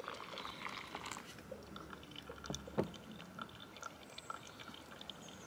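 Hot water poured from a stainless steel kettle onto coffee grounds in a paper pour-over filter, a soft, quiet trickle, with small handling ticks and one light knock about three seconds in.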